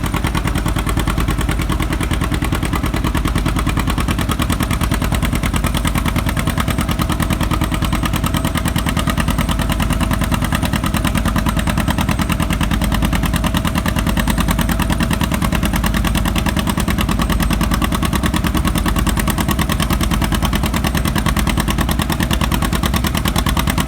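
John Deere 60's two-cylinder engine pulling hard under load, its exhaust popping in a fast, steady beat.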